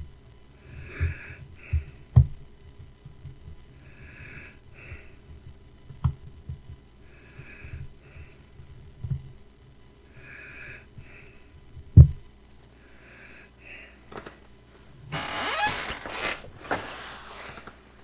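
A man breathing close to a headset microphone, a soft breath about every three seconds, with a few sharp thumps; the loudest comes about twelve seconds in. Near the end a louder rushing burst of noise comes in.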